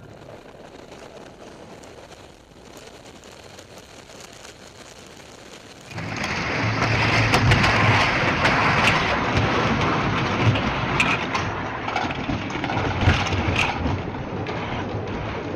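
A faint steady rush, then about six seconds in a sudden switch to a wooden roller coaster train rolling along its track: a loud, rattling rumble with scattered clacks and knocks.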